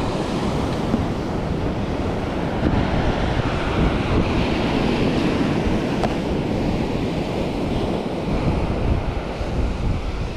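Ocean surf breaking and washing up a sandy beach, swelling to its loudest about halfway through, with wind buffeting the microphone.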